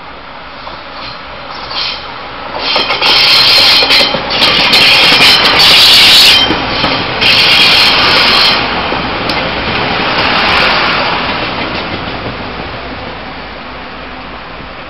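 A Taiwan Railway DR1000 diesel railcar passes close by. Its engine and wheels on the rails build up, are loudest from about three to eight seconds in, then fade as it runs away.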